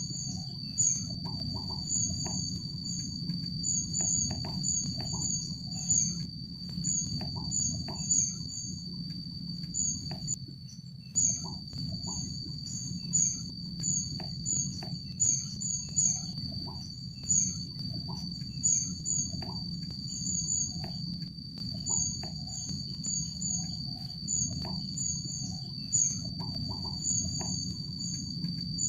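Tropical forest ambience: a steady high-pitched insect drone, with short, high chirps repeating about once or twice a second over a low rumble.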